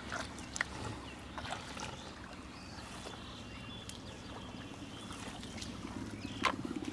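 Hands digging through soft, wet pond mud: faint wet squelching with a few short clicks scattered through, the loudest near the end.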